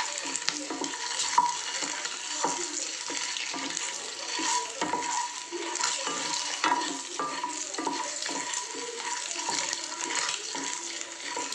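Slit hard-boiled eggs frying in spiced oil in a non-stick kadai: the oil sizzles steadily while a wooden spatula stirs and turns the eggs, with scrapes and light knocks against the pan.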